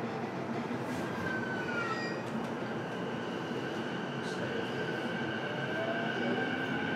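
Interior running sound of a JR East E233 series electric train, recorded aboard the motor car MoHa E233-7406: steady wheel-and-rail rumble with traction-motor noise and a high steady whine. A short falling tone comes about a second in, and a tone rising in pitch near the end.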